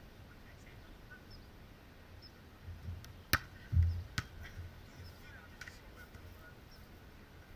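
A hand striking a beach volleyball with a sharp smack, followed under a second later by a second, smaller hit, over a low wind rumble on the microphone.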